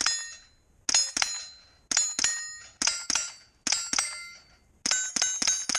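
Rifle shots on steel plates, each crack followed by the ring of the struck steel. The shots come mostly in quick pairs about a second apart, then a fast string of shots starts about five seconds in.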